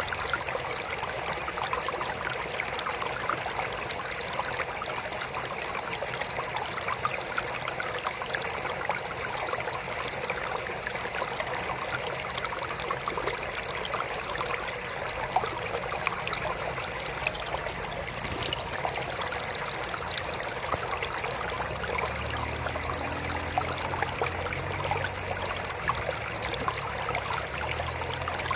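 Small trickle of water falling and splashing steadily into a mini aquarium, an even, fine-grained trickling. A faint low hum joins for a few seconds near the end.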